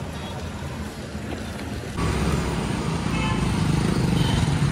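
Street noise with a steady low rumble of road traffic, stepping louder about two seconds in.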